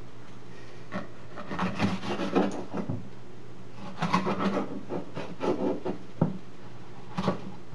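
Chef's knife slicing a red bell pepper into strips on a wooden cutting board: quick crunching cuts that knock on the wood, in two runs, the second starting about four seconds in, and one last cut near the end.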